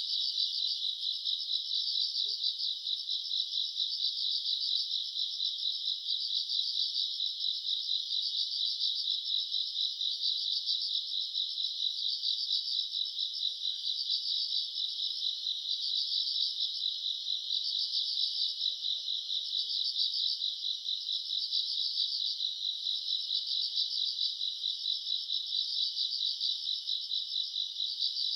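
Crickets and other grass insects chirring in a dense, steady chorus, high-pitched and finely pulsing.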